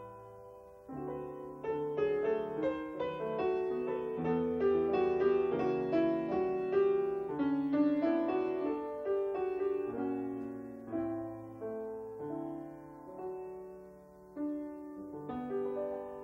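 Solo piano accompaniment playing a melody over chords, with notes that strike and fade.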